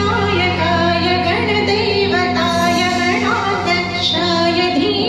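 A woman singing a melody over instrumental accompaniment with steady held low notes.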